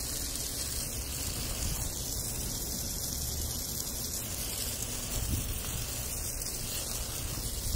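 Water spraying from a garden hose onto dry grass and soil, a steady hiss.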